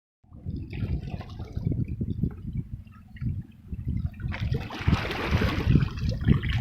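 River water sloshing and gurgling, with irregular low rumbling throughout. A louder rush of splashing water comes from about four seconds in.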